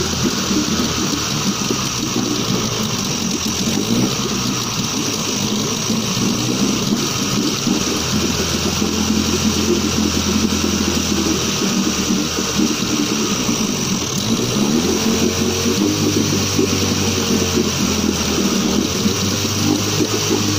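Suzuki DT9.9 two-cylinder two-stroke outboard motor running in a test barrel, with water churning under it. The engine speed shifts up and down a few times in the second half.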